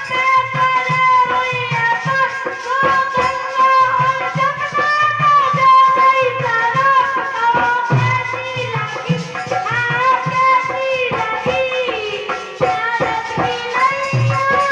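A young girl singing a melody in a high voice over a steady percussion accompaniment of low drum beats and shaken rattle-like clicks.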